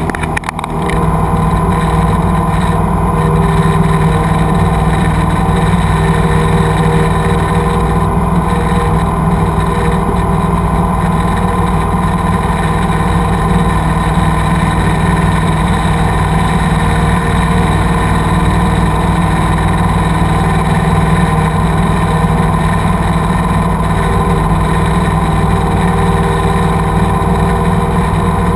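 Cessna light aircraft's piston engine and propeller running steadily in flight, heard from inside the cabin.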